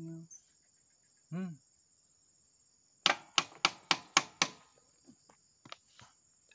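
Six sharp knocks in quick succession, about four a second, a few seconds in, followed by a few faint taps, over a steady high drone of insects.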